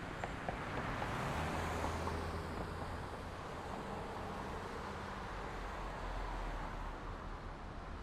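Street traffic ambience: the steady wash of passing cars, one vehicle swelling past about two seconds in, with low engine hum underneath.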